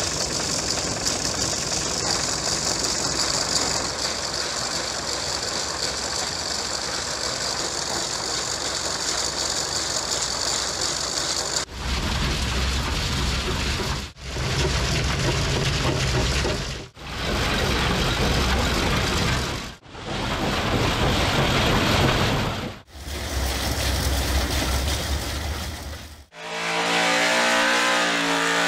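Antique rock crusher running: a steady clatter of machinery, then several short takes about every three seconds with a heavy low rumble. Near the end, a steady pitched engine drone.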